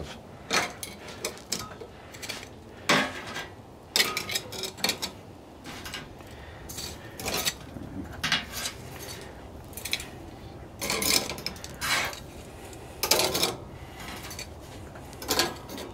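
Metal tongs clinking and scraping against a Char-Griller Gravity 980's steel cooking grates and perforated side shelf as biscuits are lifted and flipped, in irregular clicks and clusters of clinks.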